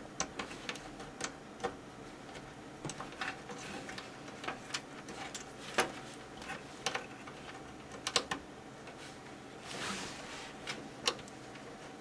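Small, irregular clicks and taps of thin-wired plastic connectors being handled and pushed onto motherboard header pins inside a metal PC case, with a brief rustle about ten seconds in.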